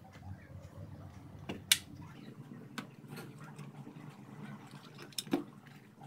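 Handling of a small DC motor and a cardboard box on a wooden tabletop: a few sharp clicks and knocks, the loudest about two seconds in and a quick pair near the end, over a low steady hum.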